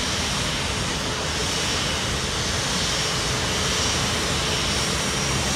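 Jet engines of a Finnair Airbus A350, its Rolls-Royce Trent XWB turbofans, at taxi power: a steady rushing noise with a faint high whine over it.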